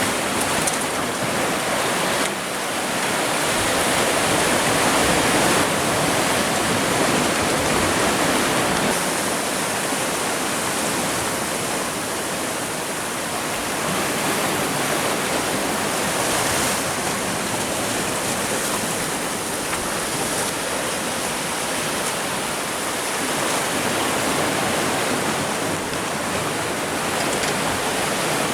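Sea surf washing against the shore rocks, a steady rush of water that swells and eases slowly.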